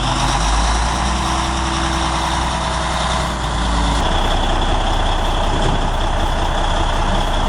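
Heavy diesel machinery running steadily: a deep engine rumble under a loud, even hiss. The rumble drops a step about four seconds in.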